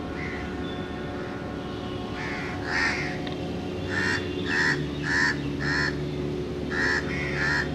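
A bird gives a run of about eight short calls: two, then four evenly spaced about half a second apart, then two more near the end, over a steady low background hum.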